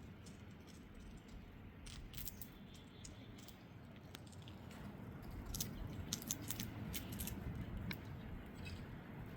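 Squirrels gnawing on walnuts: irregular sharp clicks and crackles of teeth on hard shell, growing busier partway through.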